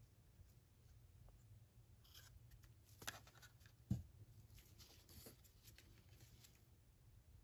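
Faint handling of paper paint cups and wooden craft sticks on a covered work table: light rustles and clicks starting about two seconds in, with a click just after three seconds and a soft knock just before four seconds as a cup is moved and set aside.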